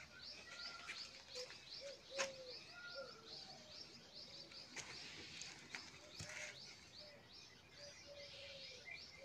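Faint birds chirping: a steady run of short high chirps with a few lower notes mixed in, and a brief click about two seconds in.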